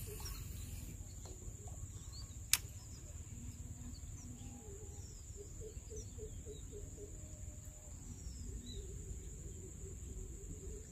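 Pondside ambience: a steady high insect drone, scattered bird chirps and a low wind rumble, with one sharp click about two and a half seconds in.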